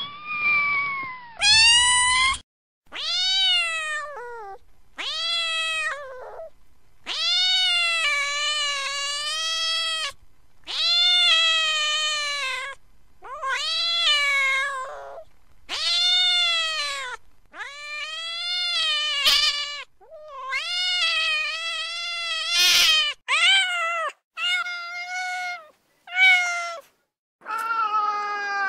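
Domestic cat meowing over and over: about fifteen separate meows in close succession, each rising then falling in pitch. Several are long and drawn out, close to a caterwaul.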